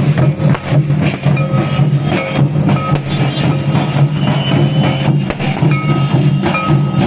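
Dhol drums beating a fast, steady rhythm for a street dance, with a high held note sounding on and off above the drumming.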